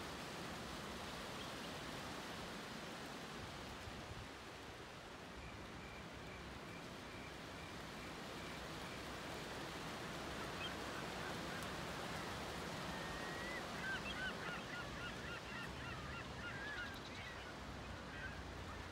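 Birds calling over a steady wash of surf and wind. From about five seconds in, one bird repeats a short high note. Through the second half comes a string of short chirping and squawking calls, loudest about fourteen seconds in.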